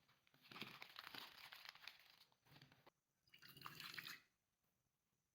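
Hands squishing and kneading clay slime, with small wet pops and crackles, in two stretches: a longer one of about two and a half seconds, then a shorter one of about a second.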